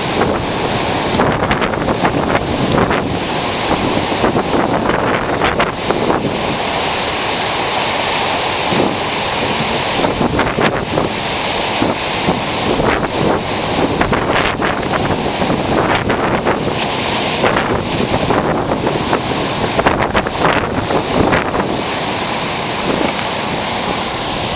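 Ocean surf breaking and washing up a beach in a continuous roar of water, with wind buffeting the microphone.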